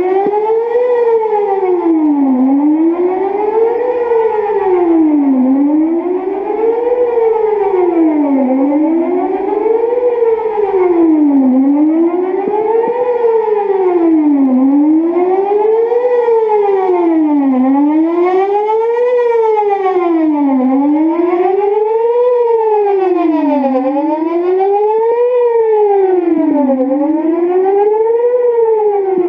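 Whelen WPS 4008 electronic outdoor tornado warning siren sounding a wail in a routine test. The loud pitch rises and falls smoothly, about once every three seconds.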